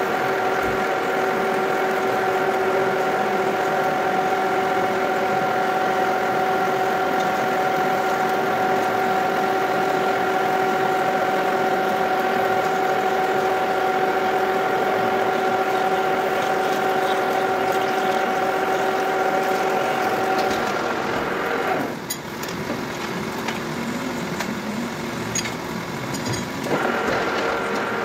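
Metal lathe running while a twist drill bores into a spinning metal workpiece under flowing coolant: a steady machine hum with a held whine. About three quarters of the way through, the whine cuts out and the machine is quieter for about five seconds, then the full sound comes back.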